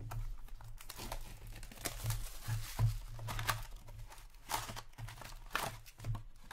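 Hockey card box being opened by hand: paper and cardboard packaging crinkling and tearing in irregular rustles, with a few sharper crackles as the inner flap is lifted and the stack of packs pulled out.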